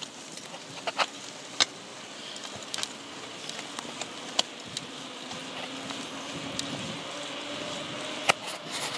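Bicycles coasting downhill on an asphalt road: steady tyre and wind noise, with a few scattered sharp clicks and a faint hum that rises slightly in pitch in the second half as speed builds.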